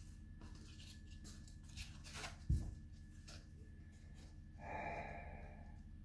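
Faint handling noise of a piece of cork bark being held and worked in the hands: light scratchy rustles, one dull low thud about two and a half seconds in, and a soft breathy sigh-like sound near the five-second mark.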